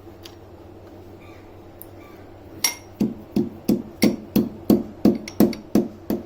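Pestle pounding spices in a mortar: about three even strikes a second, starting a little over two seconds in, each with a short ring. The strikes crush dry ginger, black pepper, cloves and cinnamon.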